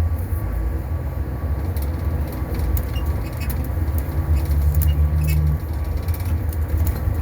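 2021 Blue Bird Vision school bus running, a steady low engine rumble with scattered light clicks and rattles.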